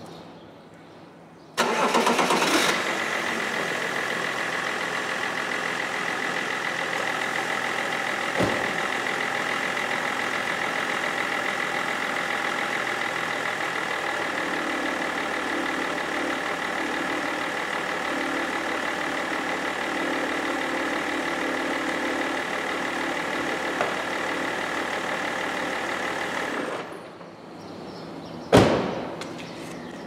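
BMW 330d E46's three-litre straight-six diesel is cranked and catches about a second and a half in, then idles steadily. About halfway through, a lower hum joins in. The engine is switched off near the end, followed by a single thump.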